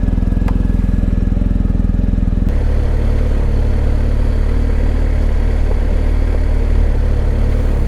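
BMW R 1250 GS Adventure's boxer-twin engine running, its sound changing abruptly about two and a half seconds in.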